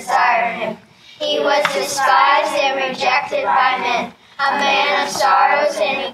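A class of fourth-grade children reciting Isaiah 53:2–6 together in unison, phrase by phrase, with brief pauses about a second in and about four seconds in.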